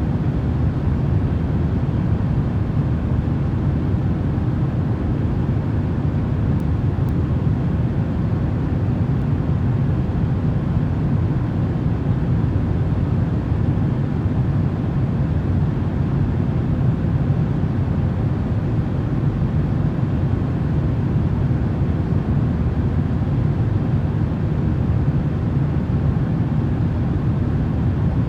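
Steady, unchanging low rumbling noise from a white-noise sleep track, heaviest in the bass and thinning out toward the highs.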